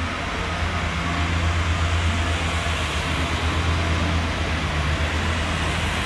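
Class 142 Pacer diesel multiple unit pulling out, its underfloor diesel engines running under power with a strong steady low hum over a broad rush of wheel and track noise as the carriages roll past. The sound grows a little louder about half a second in and then holds.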